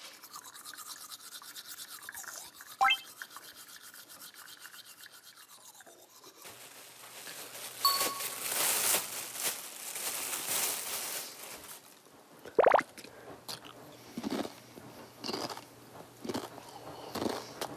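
Crinkling of a plastic snack bag being handled and opened, mixed with comic sound effects: a rapid ticking at the start, a short ding, and a run of loud separate swooping strokes in the last few seconds.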